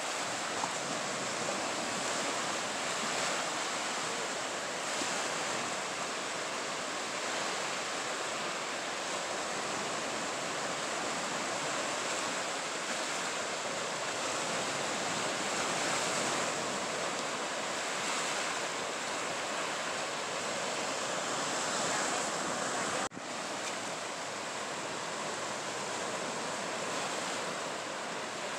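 Steady rush of surf breaking and washing up a sandy beach, with a sudden short dip about 23 seconds in.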